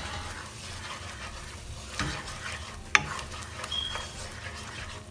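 Thick tomato and spice curry paste sizzling in oil in a pan as it is stirred, with the spoon knocking against the pan twice, about two and three seconds in.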